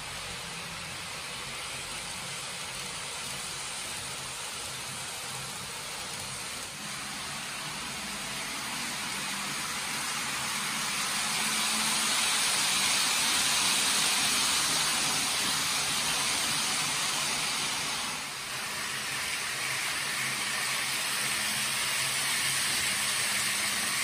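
Kato N-gauge model Shinkansen trains running on the track: a steady rushing, hissing rumble that swells louder through the middle as the trains pass close.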